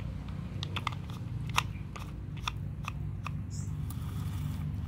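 Plastic toy cement mixer truck handled by hand: a few irregular sharp plastic clicks and clacks, the loudest about a second and a half in, over a steady low rumble.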